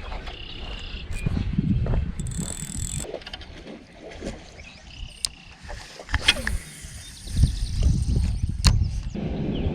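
Fishing tackle being handled close to the microphone: scattered clicks and rustles while a Ned rig is tied back onto the line.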